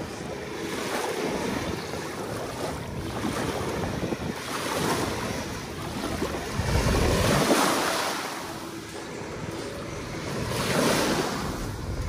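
Sea waves washing onto a beach shore, the surf swelling and fading every few seconds, with wind buffeting the microphone, strongest about seven seconds in.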